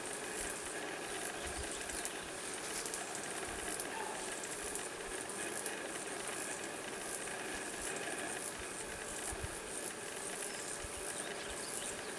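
Steady hum of honey bees around an open hive, with a few light knocks from the wooden frames being handled.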